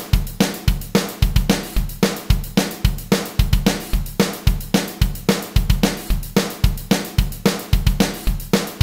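Programmed drum-kit loop at 220 BPM in 4/4, with bass drum, snare and hi-hat or cymbal keeping a steady fast beat of about three to four hits a second, used as a musical stand-in for a metronome.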